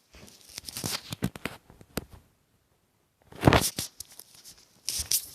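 Irregular rustling and crinkling handling noises with a few sharp clicks, broken by about a second of dead silence in the middle.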